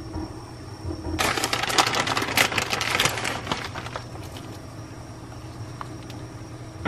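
Wooden spoon stirring thick, cheesy soup in an enamelled cast-iron pot. About a second in, a dense run of crackling scrapes lasts roughly two and a half seconds, then the sound drops back to a few quiet ticks.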